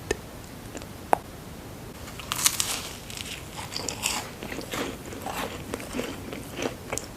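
Close-miked eating: a couple of small clicks, then a loud crunchy bite about two and a half seconds in, followed by steady crunchy chewing.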